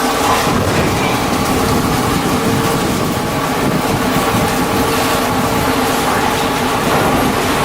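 Heavy machinery running steadily, a constant hum over a dense rumble.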